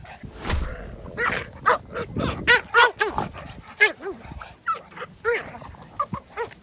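Dogs barking and yelping in a fight: a rapid, irregular run of short, sharp, high-pitched barks.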